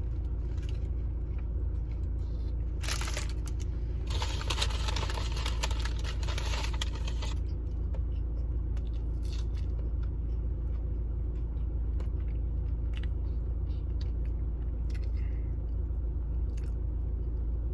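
Close-up chewing and crunching of food, mouth sounds with small clicks, over a steady low hum; a louder crunching, crinkly stretch comes about four to seven seconds in.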